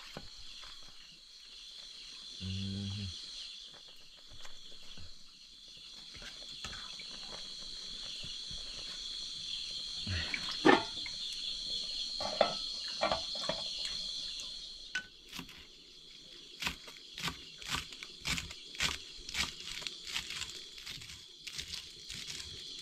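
Insects chirring steadily at a high pitch throughout. About ten seconds in come a few metal clanks of a pot lid and ladle. From about halfway on, a kitchen knife chops herbs on a wooden chopping block in regular strokes, about two a second.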